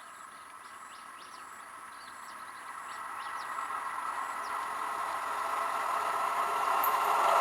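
An approaching train on the rails, its running noise growing steadily louder. Birds chirp briefly during the first few seconds.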